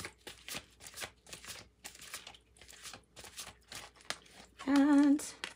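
A deck of oracle cards being shuffled by hand, the cards flicking and slapping together in quick, irregular clicks. Near the end comes a short hummed voice.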